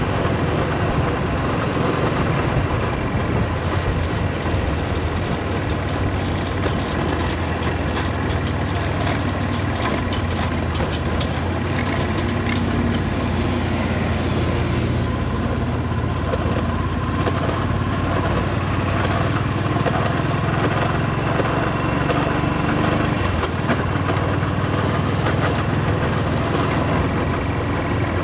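Yamaha SRX400's air-cooled single-cylinder engine running steadily, on a bike whose owner suspects a blown transmission and a slipping clutch.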